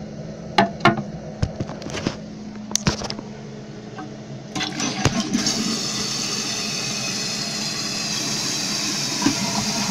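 A few sharp knocks and clunks, then a 1995 Mansfield Alto toilet flushing, water rushing steadily through the open tank from about four and a half seconds in.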